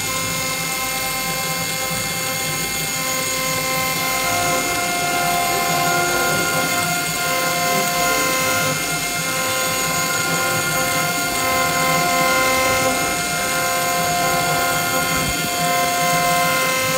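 Milling machine spindle running steadily with a whine of several held tones, a small end mill cutting a bone nut blank clamped in a vise.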